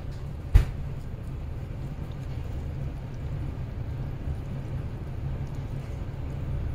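Steady low rumble of railway station background, with a single sharp knock about half a second in.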